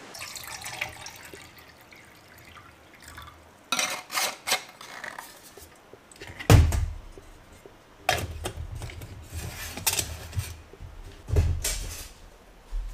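Metal cookware and utensils being handled: irregular clinks and clatters with some water splashing, and a few heavier thumps, the loudest a little past halfway.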